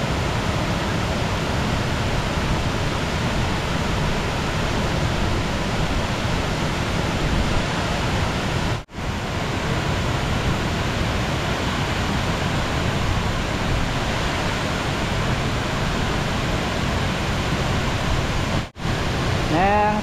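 Kuang Si Falls' cascades pouring, a steady rush of falling water that cuts out for an instant twice, about nine seconds in and near the end.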